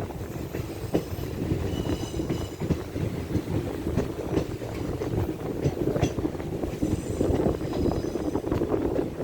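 Passenger train running along the track: a steady rumble and wheel clatter, with faint high-pitched wheel squeals twice, about two seconds in and again about seven seconds in.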